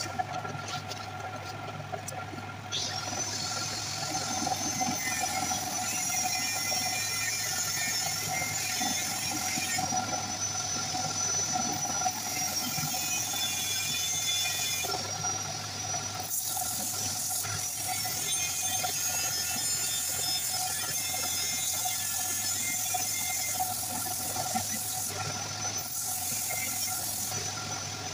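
Wood lathe running with a steady motor hum and a high, wavering squeal that comes in about three seconds in and carries on.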